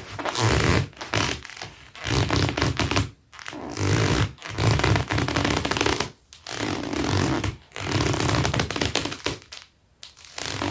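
Leather Dr Martens boots rubbed hard against each other, squeaking and scraping in about six strokes of a second or so each, with short pauses between them.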